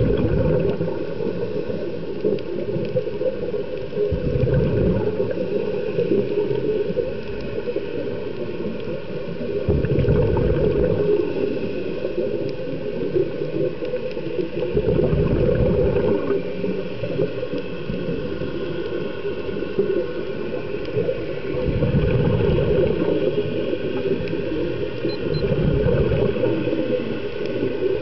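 Scuba diver breathing through a regulator underwater: a burst of exhaled bubbles about every five to six seconds, six in all, over a steady underwater hiss.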